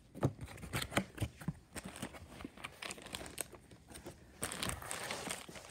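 A cardboard box being opened and handled by hand: scattered knocks and scrapes of the flaps, then a burst of plastic-bag crinkling a little over four seconds in.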